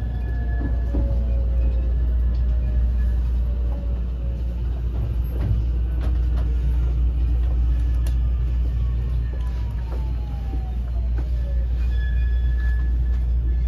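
Toshiba IGBT VVVF inverter and traction motors of a JR West 223 series 2000 electric train, heard from inside the motor car: the inverter whine falls in pitch as the train slows for the next station, over a steady low rumble of wheels on rail.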